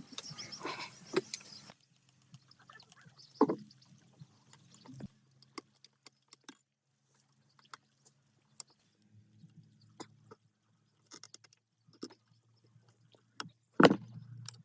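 Scattered clicks and knocks of hand work with tools and parts, with a louder knock about three and a half seconds in and another near the end, and a faint low hum coming and going.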